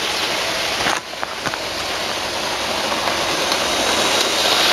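Model railway train running along its track: a steady whirring hiss that grows gradually louder from about a second in, with a few light clicks early in the run.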